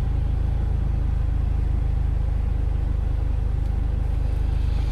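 Mercedes-AMG GLA 45's turbocharged four-cylinder engine running at a steady speed, a low, even rumble with no revving.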